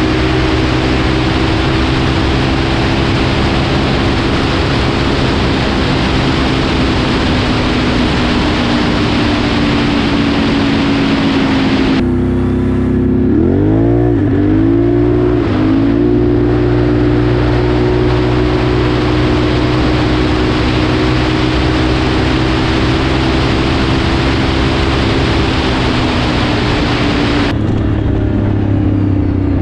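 Can-Am Renegade 1000R's Rotax V-twin, with a Two Brothers dual exhaust and an ECU remap, running at high revs at speed, with heavy wind rush on the microphone. About halfway through, the engine note drops, then rises in a few quick sweeps as it accelerates and holds high again. Near the end it settles to a lower note.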